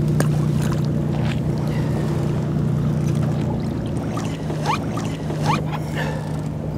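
Steady low hum of a boat engine running, with a few short rising squeaks in the second half.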